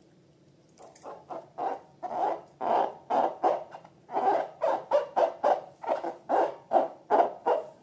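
Slime being squeezed and kneaded by hand, giving a quick run of short, hollow squelches, about two or three a second, starting about a second in.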